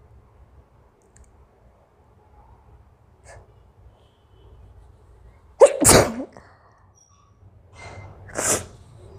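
A woman sneezes once, loudly and suddenly, about six seconds in: a sneeze set off by tickling inside her nostril with a curry leaf stem. About two seconds later comes a shorter, breathy rush of air through the nose.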